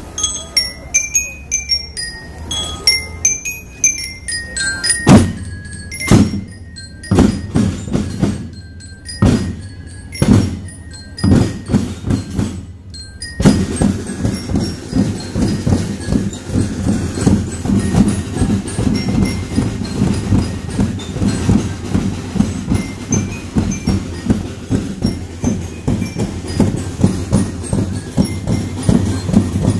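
School marching band: bell lyres play a short melody of high ringing notes, then the drums strike a string of loud single unison hits about once a second. About 13 seconds in, the full drum line comes in with a fast, steady beat.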